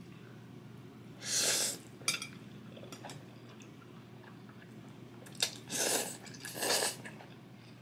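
A person eating spicy instant noodles off metal chopsticks: a short breathy rush about a second in, then two quick slurps near the end as the noodles are drawn into the mouth, with a few light clicks of the chopsticks between.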